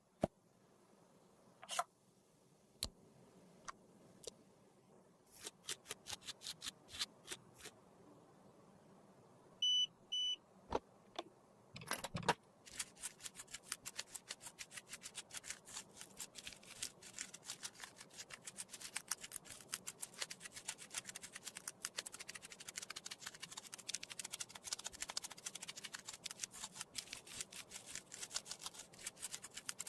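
Close-miked handling of makeup and tools for lipstick repair. A few scattered clicks and taps come first, then two short electronic beeps about ten seconds in. From about twelve seconds there is a fast, continuous run of small scraping clicks.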